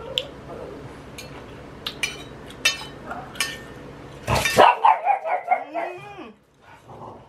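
Spoon and fork clink against a plate a few times, then about four seconds in a dog barks and gives a wavering whine.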